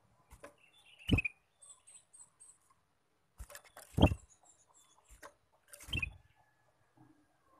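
Ruby-throated bulbul (kutilang emas) giving short chirps and high ticks, with three loud short knocks about one, four and six seconds in, the middle one loudest.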